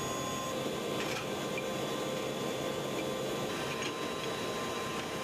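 AH-64 Apache helicopter's turbine engines running: a steady rushing noise with several steady whining tones, and a couple of faint clicks about a second in and near the end.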